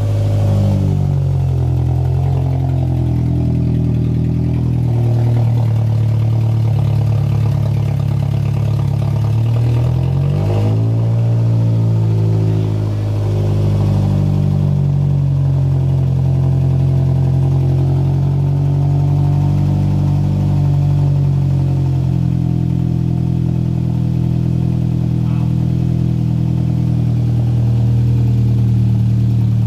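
Scion xB engine running on its first start after reassembly, with only the exhaust manifold fitted and no exhaust pipe or muffler, so it runs open and unmuffled. Its speed falls as it settles just after starting, dips and picks back up about ten seconds in, then idles steadily.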